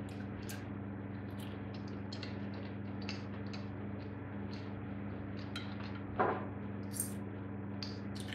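Knife and fork clicking and scraping on a ceramic plate while food is cut, with one louder knock about six seconds in. A steady low electrical hum runs underneath.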